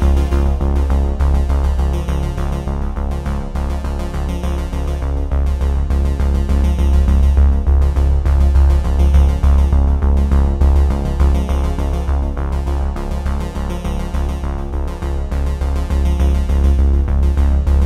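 Background music: an electronic, synthesizer-led track with a steady beat and strong bass.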